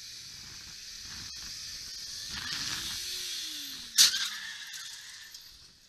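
Street traffic and road noise swelling, with the falling engine note of a passing vehicle and one sharp knock about four seconds in, then fading out.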